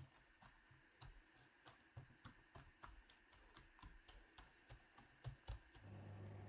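Faint, irregular light clicks and taps, a few each second, in a quiet room; a low steady hum comes in near the end.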